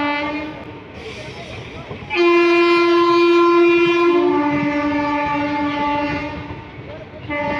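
WAP-4 electric locomotive's air horn sounding ahead of the moving train, over the running noise of the coaches. A held blast ends just after the start. About two seconds in comes a long blast of about four seconds that steps from a higher note to a lower one, and a short blast follows near the end.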